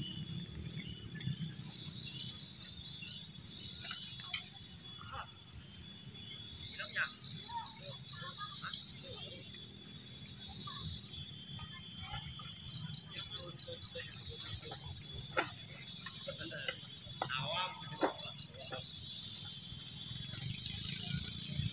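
Insects chirping in fast, high-pitched pulsed trills that come in bursts of several seconds, stopping and starting again.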